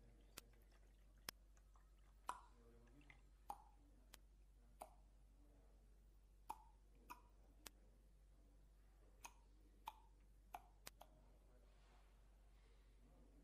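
Drops of liquid dripping one at a time at irregular intervals, about a dozen short plops and ticks against near silence.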